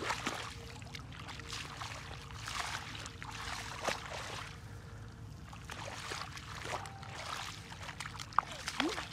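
Shallow muddy water splashing and sloshing as bare feet wade and stir through it, in a series of irregular swishes.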